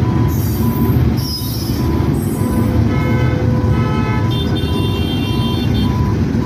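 Indian Railways diesel locomotive hauling covered freight wagons through a level crossing, with a steady heavy rumble of the engine and the wheels on the rails. Over it a short electronic beep repeats about twice a second, and a higher tone sounds from about three seconds in to about six.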